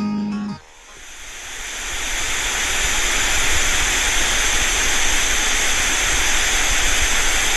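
A held synth note ends about half a second in, then a steady rushing hiss like static or a waterfall swells up over about two seconds and holds.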